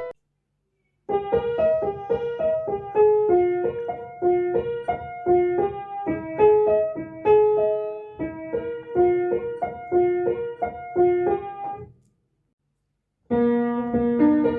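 A piano-sounding phone ringtone melody of quick, evenly paced notes starts about a second in and stops after about eleven seconds. After a short silence, another piano ringtone begins near the end.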